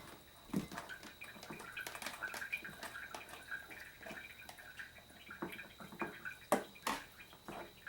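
Sliced beets and onions being packed by hand into glass jars: quiet, scattered wet taps and small clicks, with a few sharper knocks about half a second in and twice near the end.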